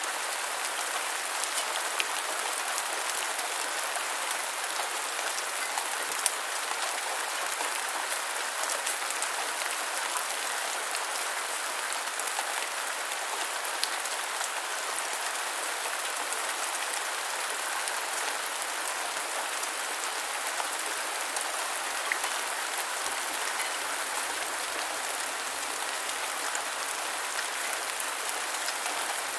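Light rain falling steadily: an even hiss of many drops, with now and then a single louder drop tapping close by.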